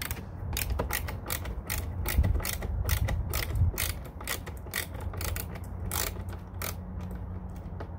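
Ratcheting screwdriver with a T15 Torx bit clicking as a screw is backed out: a long run of sharp, unevenly spaced clicks, a few a second.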